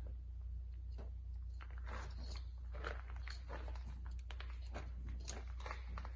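Scattered rustles and light clicks of hands at work, over a steady low hum: paper towel and dipstick being handled while the engine oil is checked.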